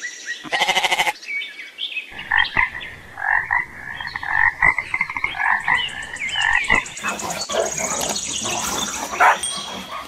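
A goat bleats once, a loud quavering bleat about half a second in. A frog then calls over and over in short croaks, and a high trill comes in for the last few seconds.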